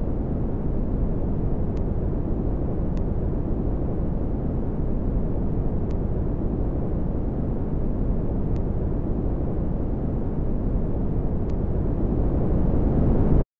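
A steady, dense low rumble with a few faint high ticks scattered through it, which cuts off abruptly just before the end.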